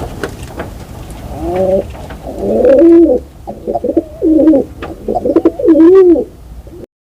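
A bird calling in low, wavering, arching phrases, repeated several times from about a second and a half in, over a steady low rumble. The sound cuts off abruptly shortly before the end.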